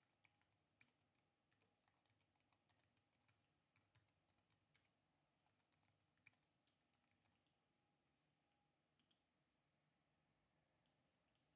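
Faint keystrokes on a computer keyboard: quick, irregular clicks in clusters with short pauses, over quiet room tone.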